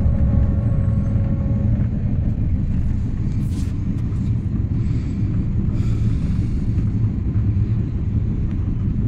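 Passenger train running along the track: a steady low rumble of the carriage and wheels.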